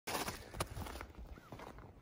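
Footsteps in snow, a few crunching steps, heaviest in the first second.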